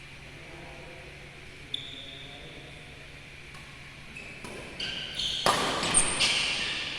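Badminton rackets striking a shuttlecock during a rally in a sports hall: a single sharp hit with a brief ringing ping, then a quick run of hits about four seconds in that grows louder, with the hall's echo trailing after.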